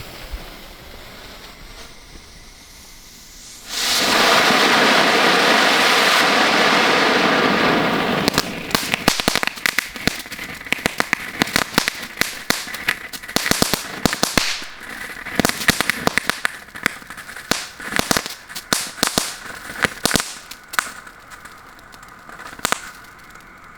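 Small strobe fountain firework: a quieter hiss at first, then about four seconds in the fountain ignites with a loud, steady hiss lasting about four seconds. It then gives way to many sharp, irregular crackling pops from the strobe stage, which thin out toward the end.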